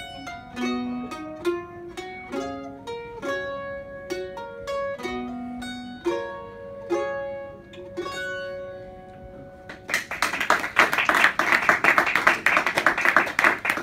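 Solo mandolin playing the closing instrumental phrase of a folk song, single plucked melody notes with some two-note chords, ending about ten seconds in. An audience then breaks into applause.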